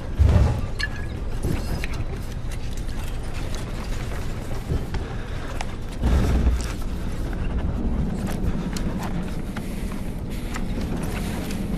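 Airliner cabin in turbulence: a steady low rumble with constant rattling and clicking, and heavy jolting thumps about a quarter second in and again about six seconds in.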